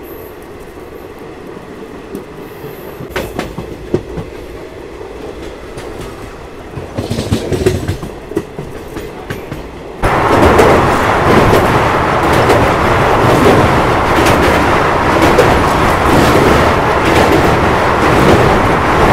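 Passenger train running at speed, heard from an open coach door: wheels rumbling and clicking over the rail joints. About ten seconds in the sound turns suddenly much louder, a dense rattling rumble as the train runs onto a steel truss bridge.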